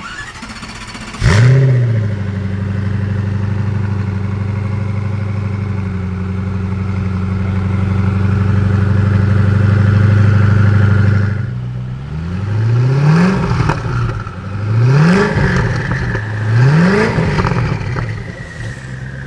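Koenigsegg Agera RS's twin-turbo V8 starting: it catches about a second in with a sharp flare of revs, then settles to a steady idle. Later it is revved three times in quick blips, each rising and falling, before dropping back to idle.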